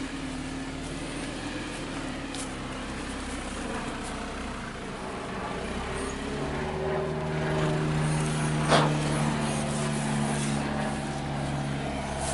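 Lada Niva's engine running at low speed as the car crawls over rough dirt ground; its note steps up and grows louder about six seconds in as it takes more throttle. A single short sharp knock near the nine-second mark.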